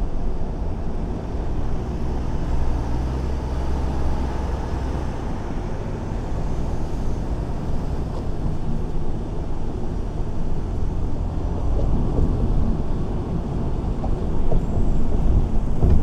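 Car driving on city streets: steady engine and tyre road noise, heaviest in the low end, growing a little louder near the end.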